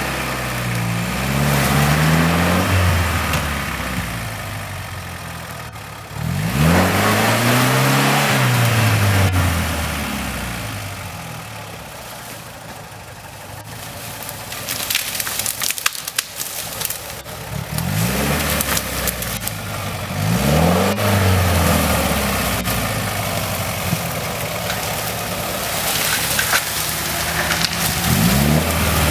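UAZ 4x4's engine revving up and easing off in several rising-and-falling surges as it crawls off-road through dense saplings, quieter for a few seconds in the middle. Branches crackle against the body now and then.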